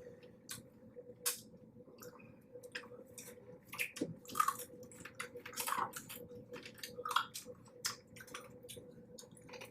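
Close-up eating sounds of blue crab being picked apart and chewed: irregular wet squishes, small clicks and smacks, over a faint steady hum.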